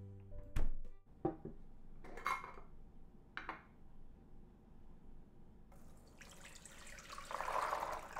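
Soaked soybeans and their soaking water poured from a glass jar into a woven bamboo strainer, a splashing pour that starts about six seconds in and grows louder. Before it, a few knocks are heard as the jar is handled, and music fades out in the first second.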